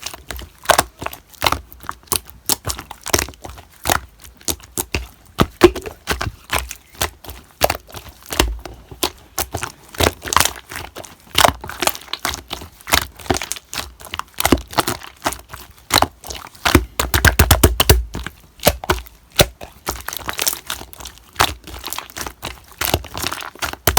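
Slime being squeezed and stretched by hand, giving off irregular sticky pops and crackles, with a dense run of clicks about seventeen seconds in.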